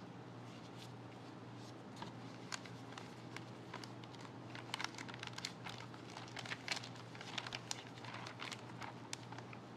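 Plastic packaging bag crinkling as a folded stack of dried tofu skin is slid into it and the bag is handled, in irregular crackles that come thickest in the second half. A steady low hum runs underneath.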